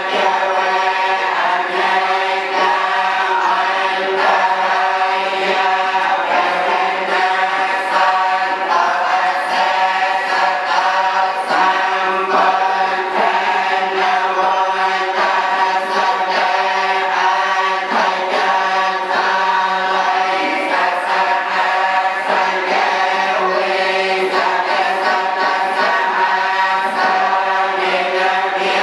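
Many voices chanting a Buddhist litany together, steady and unbroken.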